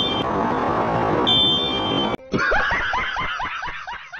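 Wind and road noise from a moving motorcycle, with a high beep near the start and again about a second later. About two seconds in, it cuts abruptly to an edited-in comic sound effect: a quick run of squeaky rising chirps, about five a second, that fades away.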